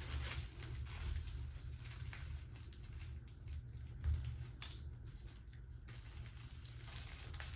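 Faint rustling and soft handling noises over a low steady rumble, with a sharper rustle about four seconds in.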